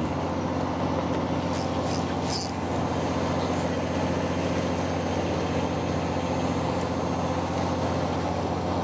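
A fishing boat's engine running steadily, a low, even drone with a fixed pitch. A few light, high ticks come through between about one and four seconds in.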